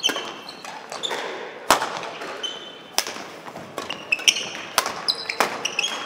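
Badminton rackets striking the shuttlecock in a doubles rally: about five sharp hits, each echoing in a large sports hall, with shoes squeaking briefly on the court floor between them.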